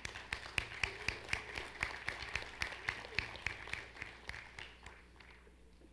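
Scattered applause from a small audience in a large hall: a few people clapping, the single claps distinct, thinning out and fading away about five seconds in.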